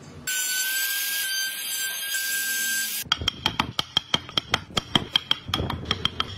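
A steady high hiss with a whistling tone for about three seconds, cutting off suddenly. Then a small metal hammer tapping a wood-carving chisel quickly and evenly, about five taps a second, each with a metallic ring.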